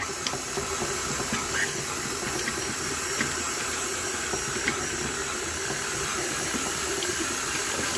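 KitchenAid tilt-head stand mixer starting up and running steadily, its beater mixing crumbly shortcrust pastry dough in the steel bowl, with a few light ticks.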